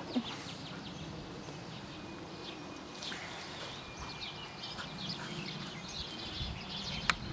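Small birds chirping, many short quick high calls, over a steady low outdoor background hum.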